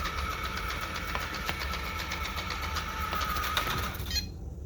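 ILife V5s Pro robot vacuum running as it returns to its charging dock, a steady motor and brush whir with rapid ticking, which cuts off suddenly about four seconds in as it docks to charge.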